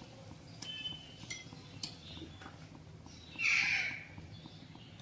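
Pet parrot calling: a few short chirps, then one loud, harsh squawk about three and a half seconds in.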